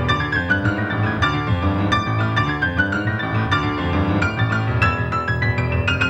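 Grand piano played solo at a fast pace: a dense stream of quick notes in the treble over a steady bass.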